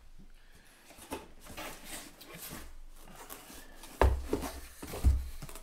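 Cardboard boxes and paper being handled: rustling and sliding, then two heavy thumps about four and five seconds in as a box is lifted out of its shipping carton and set down on a countertop.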